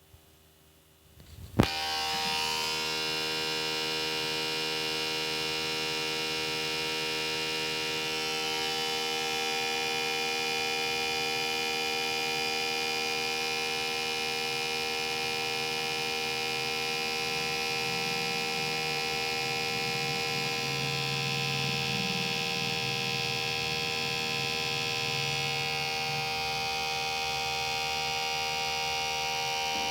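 DVD drive: a sharp click about a second and a half in, then a steady whirring hum with several held tones as the disc spins, shifting slightly around eight seconds in.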